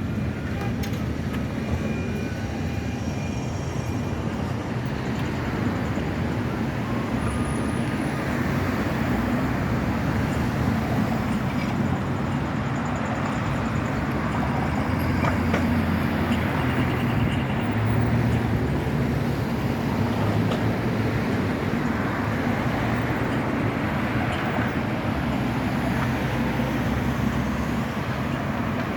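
Zagreb ZET tram running on its rails: a steady low rumble with a droning hum, growing a little louder midway.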